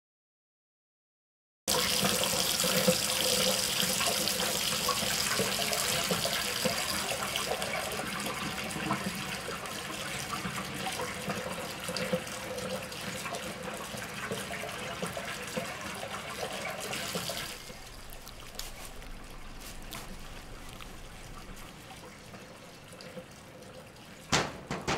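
Silence, then about two seconds in a steady rush of running water starts. About two-thirds of the way through it drops to a quieter hiss, and a couple of sharp knocks come just before the end.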